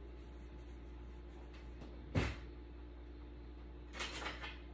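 Handling sounds: a single sharp knock about two seconds in and a short rustle near the end, over a steady low hum.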